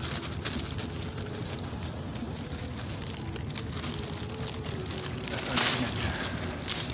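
Thin plastic bag rustling and crinkling as it is handled, with a louder crinkle about five and a half seconds in, over a steady hiss.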